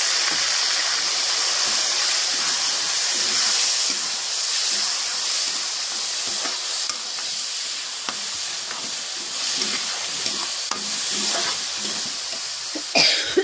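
Rice and fried onions sizzling in hot oil in a metal kadhai while a metal spatula stirs them, scraping and clicking against the pan. A louder knock about 13 seconds in.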